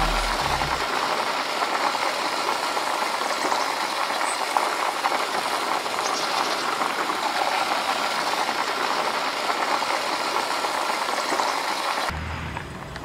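Soybean soup boiling hard in a small camping pot on a portable butane stove: a dense, steady bubbling and crackling that cuts off suddenly near the end.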